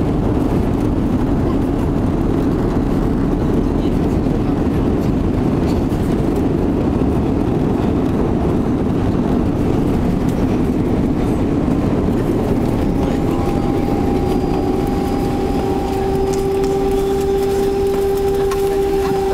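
Cabin noise of an Airbus A340-600, with four Rolls-Royce Trent 500 engines, rolling out along the runway after landing: a steady rumble of engines and wheels. About two-thirds of the way through, a steady whine at two pitches comes in over it.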